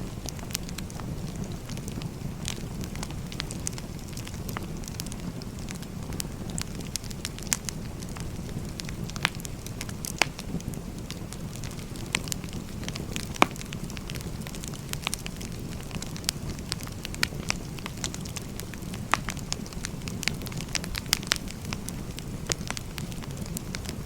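Firewood burning: a steady low rumble of flames with irregular sharp crackles and pops from the logs.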